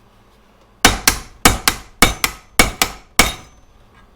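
A hammer tapping a brake-pipe rivet eyelet to swell it and lock it into the hole. There are about nine sharp metallic strikes, mostly in quick pairs, starting about a second in.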